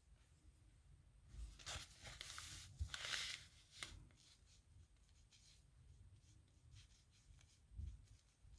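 Faint scratching of a pen or brush drawing strokes on paper, a run of louder strokes about two to four seconds in, then lighter ones.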